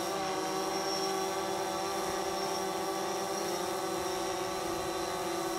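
DJI quadcopter drone hovering, its propellers making a steady hum of several tones.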